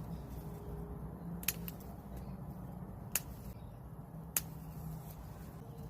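Scissors snipping through oregano stems: three short, sharp snips about a second and a half apart, over a steady low background hum.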